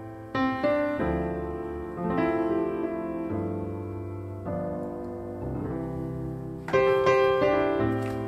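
Background piano music: a gentle melody of sustained notes and chords.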